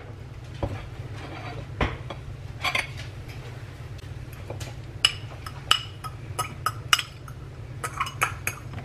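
A utensil clinking and scraping against a dish while coleslaw is spooned onto a plate: a few scattered clinks at first, then a quicker run of sharp clinks through the second half, over a steady low hum.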